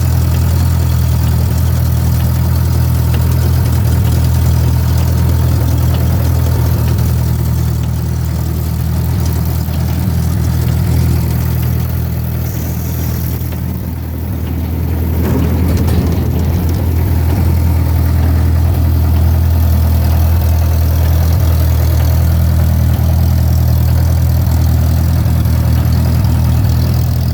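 Engine of a Mayco concrete pump running steadily with a low, even drone. It sags slightly about halfway through and then picks back up.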